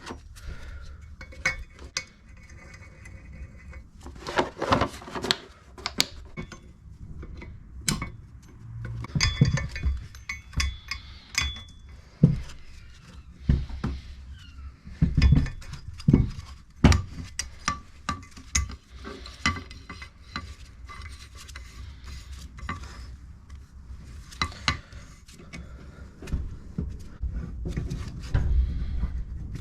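Metal engine parts and hand tools clinking and knocking irregularly on a workbench as the engine is dismantled.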